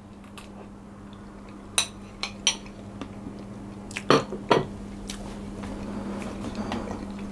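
A metal fork clinking against a plate: a few short, bright clinks about two seconds in, then two heavier knocks a little after four seconds.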